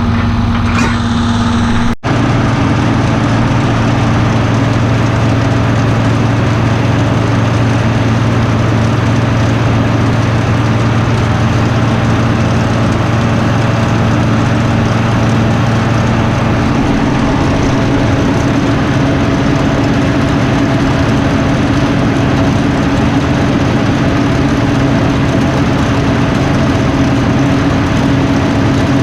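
Diesel engine of heavy farm harvesting machinery running steadily, with a constant low hum. The note shifts about halfway through.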